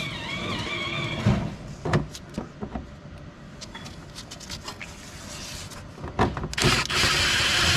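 Scattered knocks and clicks as the plastic splash shield and its bolts are handled, then, about two-thirds in, a cordless impact driver starts up and hammers a 10 mm bolt home with a fast, loud rattle.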